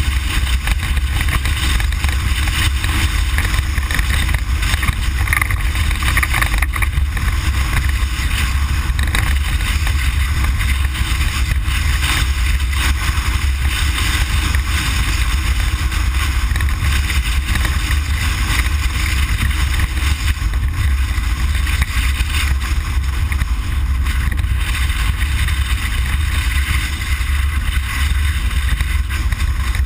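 Inside the cabin of a Ford Explorer prerunner driving off-road: a steady, loud low drone of engine and tyres, with wind and rushing noise on top.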